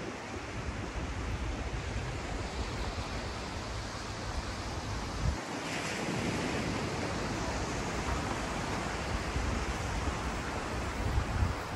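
Sea surf washing onto the shore as a steady hiss, with wind rumbling on the microphone. The hiss surges briefly about halfway through.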